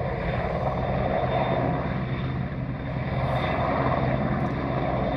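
Helicopter hovering in place with an underslung load, its rotor and engine drone steady throughout, with a constant low hum.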